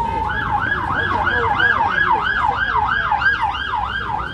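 Emergency vehicle siren: a slow falling wail that switches, just after the start, to a fast yelp rising and falling about three times a second.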